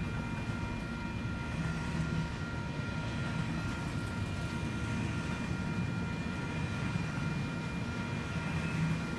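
Double-stack intermodal freight train rolling past, a steady low rumble of wheels on rail, with faint steady high-pitched tones above it.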